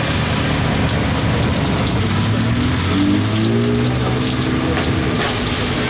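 Heavy rain pouring down onto wet tarmac, a dense steady hiss. Underneath, a supercar engine runs at low speed, its note climbing in steps from about two seconds in as a car pulls past.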